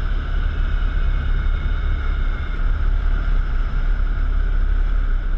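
Light single-engine aircraft cockpit noise on a gliding approach with the throttle closed: the engine idling and the propeller windmilling, giving a steady low rumble with airflow and a steady high whine over it.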